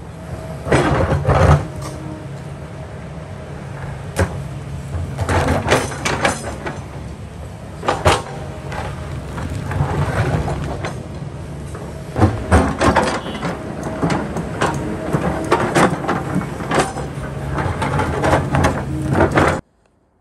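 Kobelco excavator engine running steadily while its bucket scrapes and knocks against rocks, with repeated clanks and grinding scrapes. The sound cuts off suddenly near the end.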